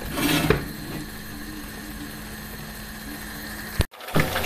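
A brief scrape of a wooden spatula in a frying pan of tomato and spinach sauce at the start, then a steady low hum that breaks off abruptly near the end.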